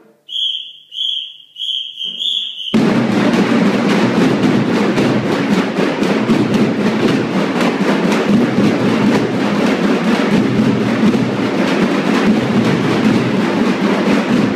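Four short high-pitched sounds about half a second apart, then a group of children's dhol drums all start together about three seconds in, playing a loud, dense, continuous beat.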